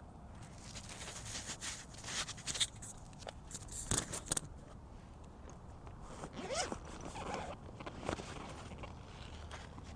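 Clothing being handled: a series of short, quick scraping strokes and rustles, with a few brief sliding sounds around the middle.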